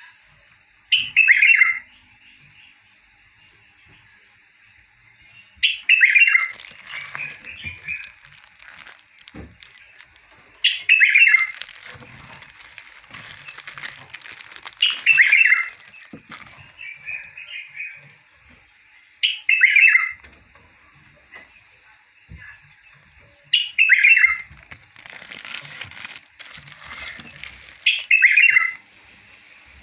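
A caged bulbul singing a short phrase seven times, about every four seconds, each a quick run of falling notes. In between, plastic wrapping crinkles as it is handled.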